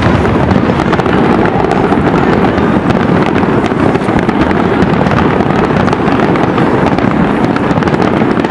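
Aerial fireworks display: a steady, dense rumble of shell bursts with many small crackles running through it.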